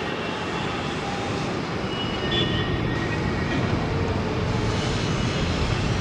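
Jet airliner engines at taxi power, heard from afar as a steady rumble and hiss that grows slightly fuller about halfway through.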